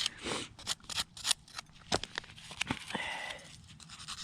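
Hand tool scraping and rubbing stiff, partly set mortar into the joints between Belgian blocks, in quick irregular strokes.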